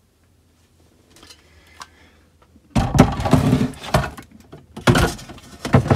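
Dishware being handled and set down into a plastic tub: after faint rustling, a series of loud knocks and clatters, from about three seconds in, as a Thermomix's stainless-steel mixing bowl goes in among the pans.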